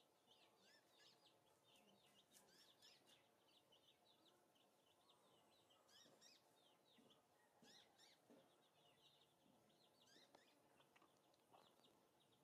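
Faint, quick chirping of small birds, many short high chirps following each other over a low background hiss.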